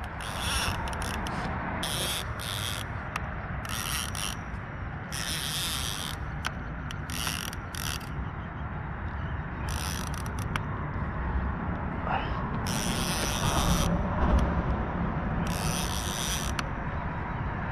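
Fishing reel whirring in about a dozen short bursts, over a steady low rumble.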